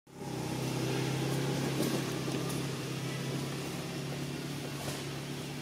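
Steady low hum of a running engine, with a few faint clicks over it.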